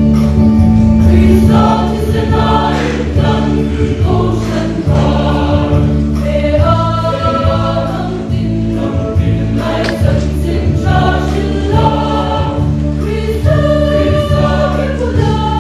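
A choir singing a gospel hymn over steady instrumental accompaniment.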